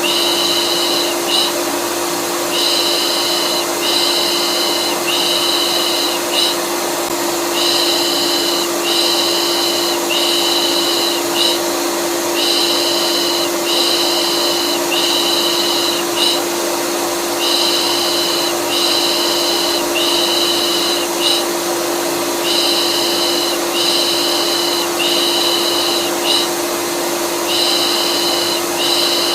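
Vacuum cleaner running steadily with a constant motor hum, under a rhythmic soothing 'pış pış' shush. The shush comes as three hisses of about a second each, then a short pause, repeating every five seconds or so, as a calming loop for a colicky baby.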